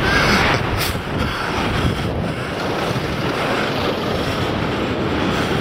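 Steady rush of wind on the microphone of a camera on a moving bicycle, over the rumble of city traffic with a bus close by.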